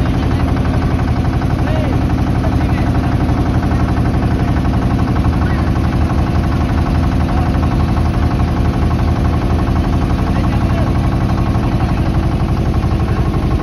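A motorboat's engine running steadily, a low, even drone, with faint chatter of passengers over it.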